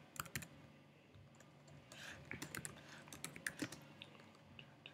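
Faint keystrokes on a computer keyboard: a short run of key taps, a lull, then irregular typing again from about two seconds in.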